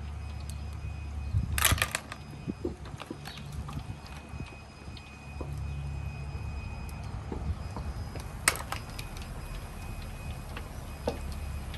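Cooked mussel shells clicking and clinking against each other and the bowl as they are picked over and half shells are pulled off: a cluster of clicks about two seconds in and one sharp click near the end, over a low steady rumble.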